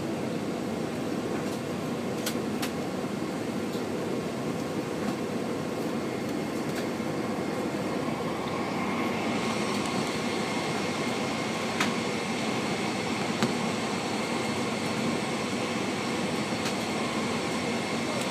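Cabin noise of a Boeing 747-436 taxiing, its Rolls-Royce RB211-524H engines running at taxi power: a steady rumble and hiss. A high engine whine grows louder about nine seconds in, and there are a few faint clicks.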